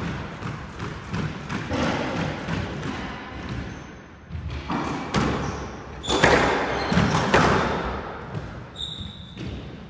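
Squash rally: sharp smacks of the racket on the ball and the ball hitting the court walls, loudest about halfway through, with footsteps and short shoe squeaks on the wooden floor.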